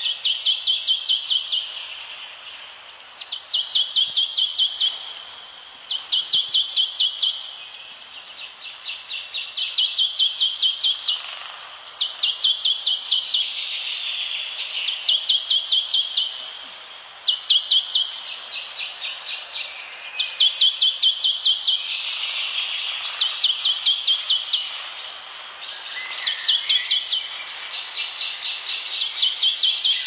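Short, rapid chirping trills from a wild forest animal, each about a second long and repeated roughly every two seconds, with a second, fainter caller trilling in between.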